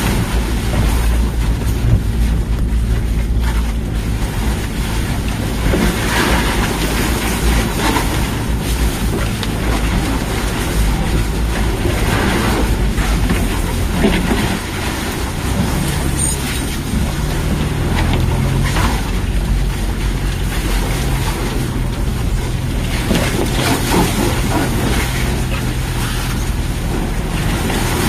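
Land Rover Freelander driving off road: the engine runs steadily under load, with wind and rumble from the rough ground. The engine note changes about halfway through.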